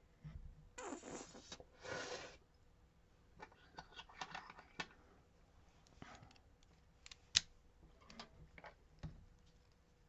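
Small metal lock parts and hand tools clicking and scraping as a lock is taken apart by hand. Two short scrapes come about a second and two seconds in, followed by scattered light clicks, with one sharper click past the middle.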